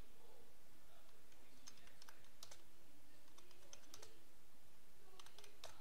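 Computer keyboard keys clicking in irregular bursts as words are typed, over a steady hiss.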